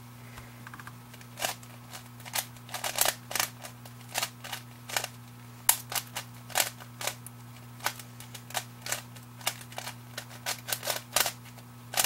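3x3 Rubik's cube being turned face by face by hand: a string of sharp plastic clacks at uneven intervals, one per turn, as the cube is worked through a scramble sequence. A faint steady hum runs underneath.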